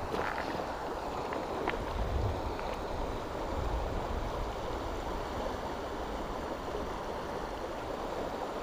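Steady rush of flowing creek water, with a few faint ticks early on and now and then a low rumble.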